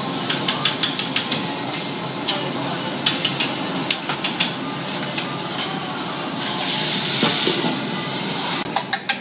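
Metal spatulas and a steel dome clinking and tapping on a steel teppanyaki griddle in quick runs of sharp clicks, over a steady kitchen hiss. A louder hiss swells for about a second around seven seconds in, just before the onions sit under the dome.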